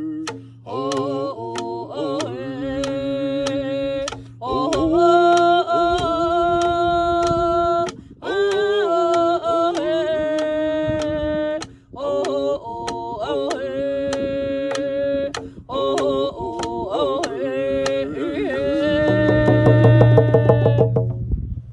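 A man and a woman singing a hand-drum song, with frame drums struck with a beater in a steady beat about twice a second. Near the end the drumming quickens into a fast roll under a long held note, closing the song.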